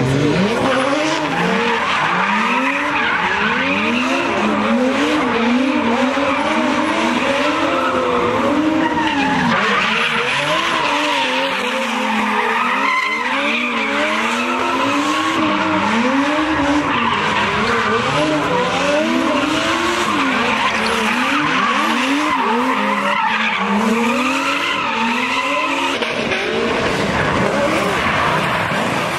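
A car engine revving hard, its pitch rising and falling about once a second, over the steady hiss of tyres spinning and skidding as the car slides in tyre smoke during a drift or burnout.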